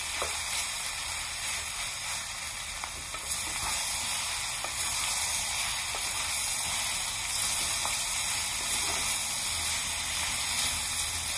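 Egg fried rice with vegetables sizzling steadily in a hot black pan, with a few faint clicks.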